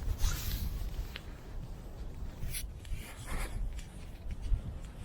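Wind buffeting the microphone in a steady low rumble, with a few brief rustling swishes.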